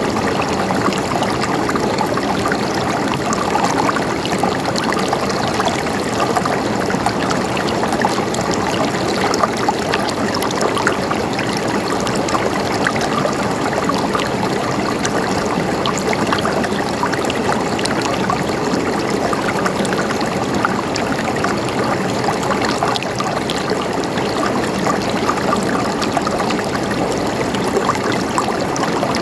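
Stream water flowing and gurgling over stones: a steady, even rush with many small splashes and trickles, unchanging throughout.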